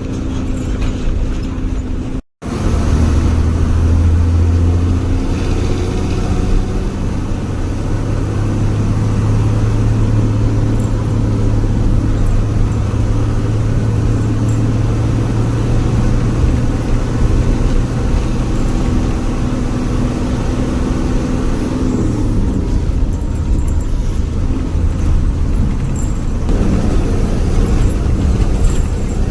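Diesel engine of an old Hino HG bus running under way, a deep steady drone whose pitch rises and falls with the road. It has the growl that bus fans call 'ngorok' (snoring).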